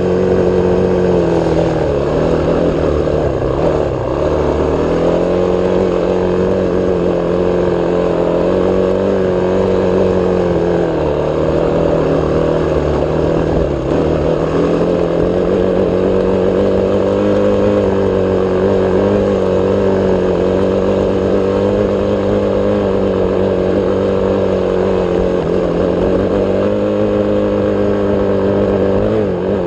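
Dirt bike engine running at a steady trail-riding speed, its pitch dipping briefly a few times as the throttle eases and then climbing back.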